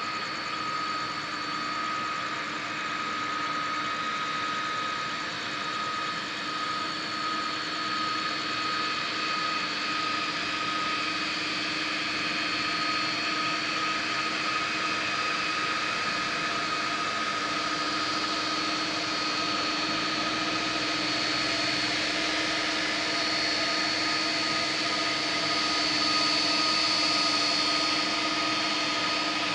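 Airbus A330-200 jet engines running at taxi idle: a steady whine with several held tones over a rushing hiss, slowly growing louder toward the end.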